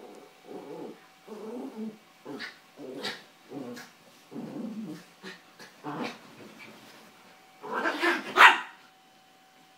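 Two Yorkshire terriers play-fighting, growling and barking in short bursts about every half second. The loudest flurry of barks and growls comes around eight seconds in and stops about a second before the end.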